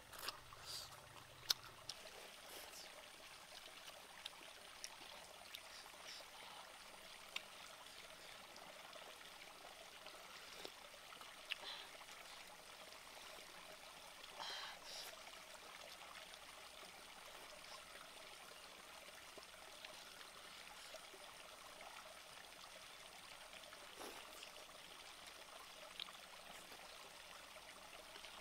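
Faint, steady running of a small stream, with scattered small clicks. A short slurp from a soup bowl comes about halfway through.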